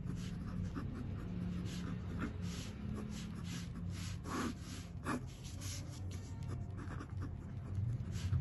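Pen writing on paper in short strokes, with a steady low hum underneath.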